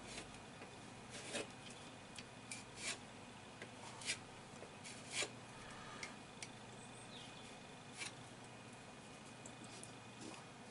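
Filling knife scraping plaster filler into holes in a wall: a handful of short, faint scrapes and clicks at an irregular pace.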